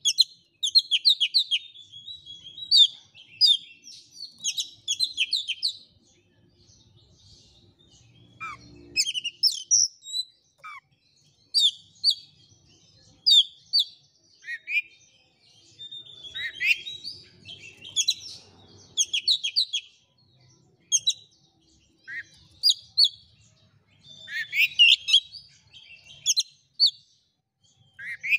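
Oriental magpie-robin singing: bursts of rapid, varied chirps and whistled phrases, some with quick downward slurs, separated by short pauses.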